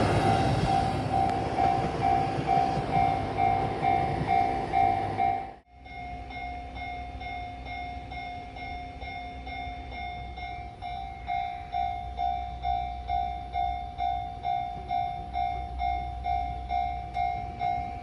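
Japanese level-crossing alarm ringing steadily at about two strokes a second, over the running of a JR Hokkaido H100 diesel railcar passing the crossing. After an abrupt cut about five and a half seconds in, the alarm goes on more faintly and the train noise drops away.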